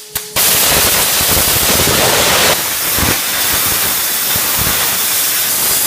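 Cutting torch blowing through the steel of a railroad track rail: a loud, steady hiss of the cutting jet, starting after a brief break and easing slightly about halfway through.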